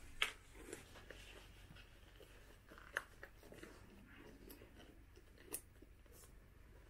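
A handful of short, sharp metallic clicks and taps from pliers, a pointed tool and the bag's metal frame being handled as the leather is worked off the frame. The loudest clicks come just after the start and about three seconds in, over quiet room tone.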